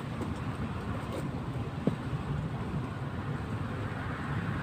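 Low, uneven rumble of wind buffeting the microphone, with a couple of faint clicks.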